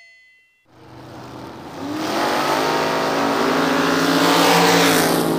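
A car engine running at high revs with a rush of noise, fading in from silence about a second in and building to loud, like a race car drawing near.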